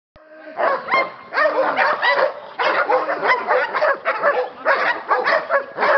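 A dog barking rapidly and repeatedly, about three barks a second, with the barks overlapping.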